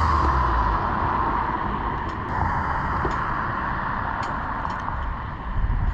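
Steady background rumble of traffic, with a few faint clicks.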